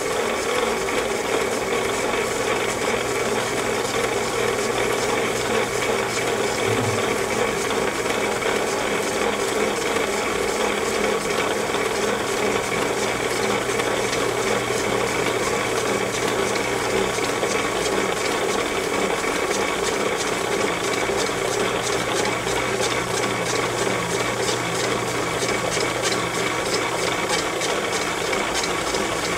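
Motorised microfilm reader fast-winding its film: the transport motor and reel mechanism run steadily, with a fine, rapid rattle over an even hum.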